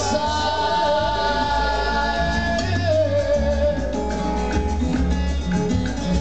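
Latin dance music played loud through a sonidero sound system: a singing voice holds long notes and slides down about halfway through, over heavy bass, with percussion keeping a steady beat in the second half.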